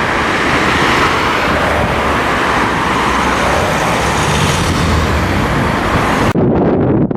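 Steady rumble and hiss of a moving road vehicle or traffic. About six seconds in it cuts abruptly to wind buffeting the microphone.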